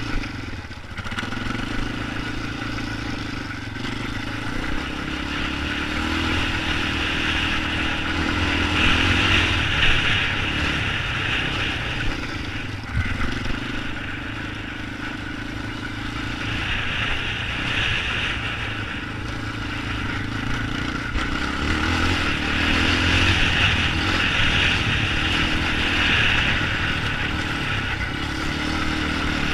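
ATV engine running and revving up and down, swelling louder for a few seconds at a time, around 9 to 11 seconds in and again from about 22 to 27 seconds in.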